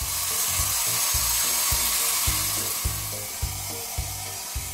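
Water spraying from a handheld shower head, a steady hiss that fades about three seconds in as the mixer tap is turned off. Background music with a steady beat plays underneath.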